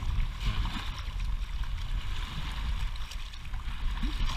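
Small lake waves washing and splashing over a stony shoreline and a half-submerged boulder, over a steady low rumble.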